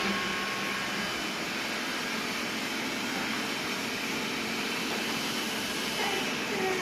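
Xiaomi Mi robot vacuum running, a steady whir of its suction fan and brushes.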